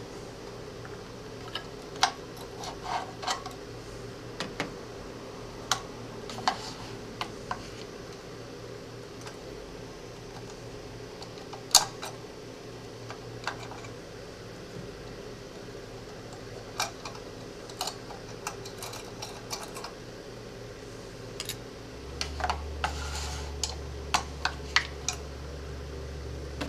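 Irregular metal clicks and small clatters of a 1911-style pistol's parts being handled and fitted by hand on a pistol stand, the sharpest one about halfway through and a quick run of clicks near the end. Under them runs a steady low hum that gets louder near the end.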